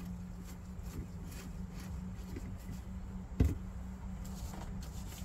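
A single sharp knock about three and a half seconds in, with a few faint clicks, over a steady low hum.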